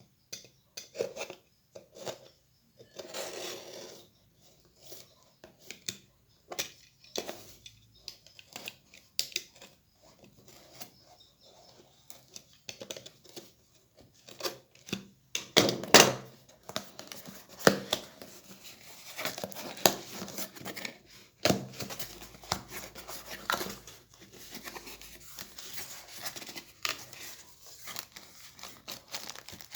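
Packaging being opened by hand: irregular tearing, crinkling and rustling with scattered sharp clicks and knocks, the loudest knock about halfway through.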